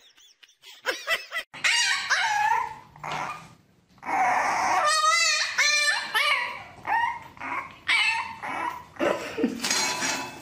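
A puppy yipping and whining in a string of short, high calls, one of them quavering about halfway through.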